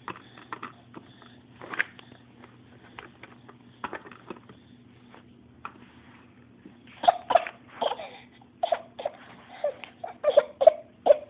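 A baby's short fussing cries and breathy sounds, scattered at first, then a quick run of them over the last few seconds.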